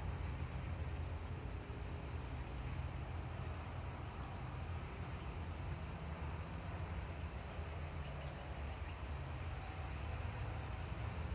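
Steady outdoor storm ambience as a hurricane's outer edge passes: an even hiss over a low rumble, with faint high-pitched chirps scattered through it.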